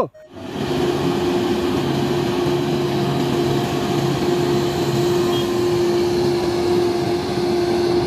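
Grove GMK6300L all-terrain crane's engine running as the crane drives along a road: a steady drone with a constant hum over road noise.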